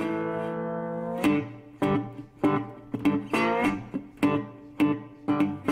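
Guitar music: one held chord, then chords struck at an even pace about every 0.6 s, some notes bending in pitch.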